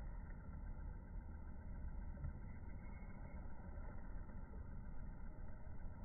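Steady low rumble of outdoor background noise, with no bird calls.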